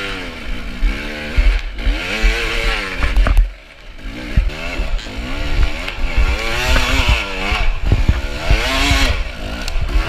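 Dirt bike engine revving up and down again and again as it is ridden, with the throttle shut briefly about three and a half seconds in.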